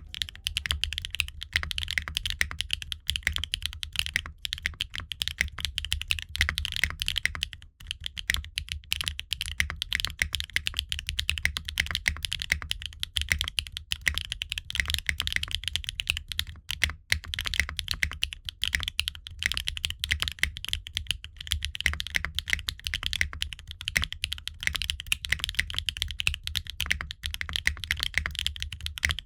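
Fast, continuous typing on a Qwertykeys Neo65 Core Plus mechanical keyboard fitted with HMX Meteor linear switches and ABS double-shot Cherry-profile keycaps, in a gasket-mounted aluminum case with no foam: a dense, unbroken run of keystroke clacks.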